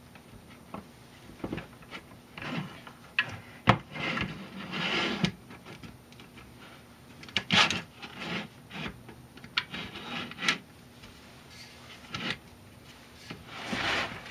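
Hand handling of metal mini milling machine kit parts on a wooden baseboard: irregular scraping and rubbing with light knocks and clicks, louder around four to five seconds in and again at about seven and a half seconds, then more scraping near the end as the board is tipped up.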